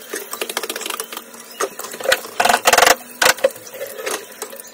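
Metal skimmer clinking and scraping against a wok and a steel plate as pieces of battered chicken are lifted out of hot oil, among quick crackling ticks. The loudest clatter comes about two and a half to three seconds in.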